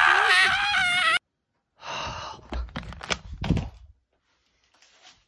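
A man screaming loudly, his pitch wavering up and down, cut off abruptly about a second in. After that come a few soft knocks and rustles, then near quiet.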